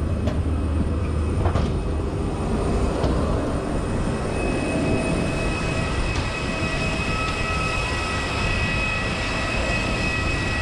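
Steady machinery drone around a parked Airbus A321 on the apron, with a couple of knocks near the start. A high, steady whine comes in about four seconds in and holds.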